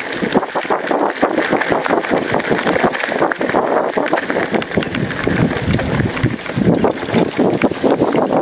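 Mountain bike rolling over a rough gravel and dirt trail: a continuous clattering rattle of tyres on loose stones and the bike jolting over the bumps, made of dense, irregular knocks.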